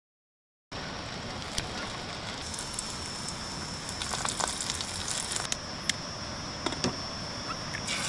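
Burger bun toasting in an aluminium mess tin on a camp stove: a steady sizzle with scattered light crackles, starting under a second in. A thin, steady high tone runs over it.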